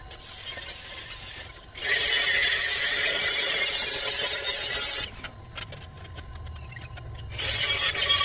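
A grinder fitted with a thin cut-off wheel cutting stainless steel tube in two passes of about three seconds each, a harsh high hiss, with quieter running between the cuts.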